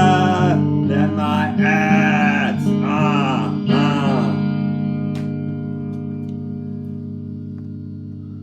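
End of a song: sung held notes over a sustained guitar chord for about four seconds, then the chord rings on alone and fades away.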